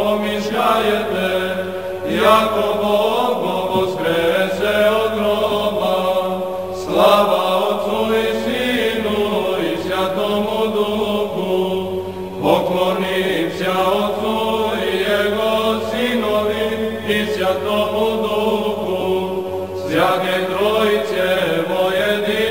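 Orthodox liturgical chant: voices singing long melodic phrases over a steady held low note, with a new phrase starting every few seconds.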